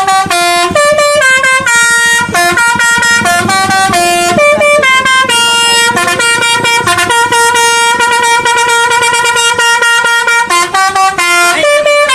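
Indonesian bus 'telolet basuri' musical horn playing a quick melody, its notes changing several times a second without a break.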